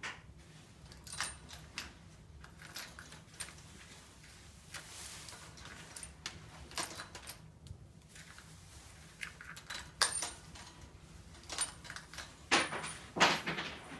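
Budgie rattling her food bowl and flicking seed out of it in play: irregular small clicks and rattles, louder in a flurry near the end.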